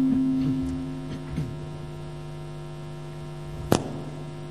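Steady electrical hum from the room's microphone and PA system. A louder low tone fades away over the first second and a half, and a single sharp click comes near the end.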